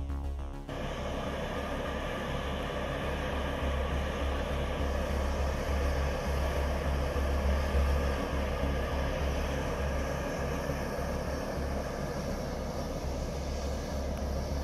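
Background music cuts off under a second in, giving way to the steady hissing roar of steam venting from a hot-spring fumarole, with an uneven low rumble beneath.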